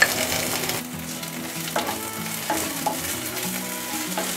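Chopped onions and ginger-garlic paste sizzling in oil in a non-stick kadai, with a spatula stirring them and a few short scrapes and taps against the pan around the middle.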